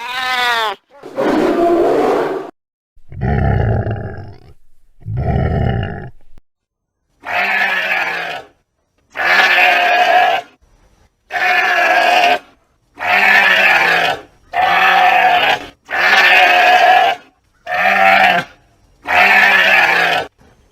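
Sheep bleating: a series of about eight long baas with short pauses between them, beginning about seven seconds in. Before them come a falling pitched sweep and a few other short, low-heavy calls.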